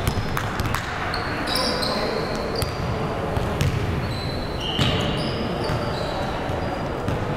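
Indoor basketball game on a hardwood gym floor: a ball bouncing in repeated knocks and sneakers giving short high squeaks, all echoing in the large hall.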